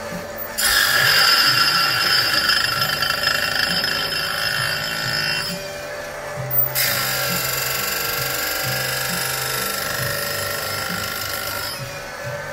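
Oregon automatic saw-chain grinder's wheel grinding chain teeth: a loud, high, ringing grinding noise in two long passes of about five seconds each, with short breaks about halfway through and near the end.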